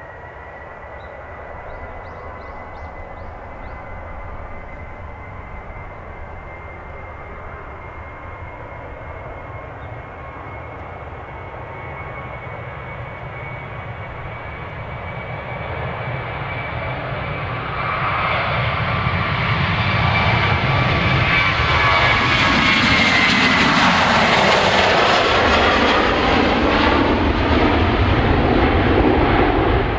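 Boeing 737-800's CFM56-7B turbofan engines at takeoff thrust: a steady high whine over a rushing roar as the jet rolls down the runway, growing much louder about eighteen seconds in as it lifts off and climbs past, the roar sweeping in pitch as it goes by.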